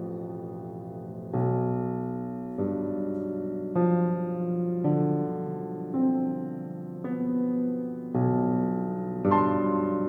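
Slow solo piano music: sustained chords, a new one struck about every second, each ringing and fading before the next.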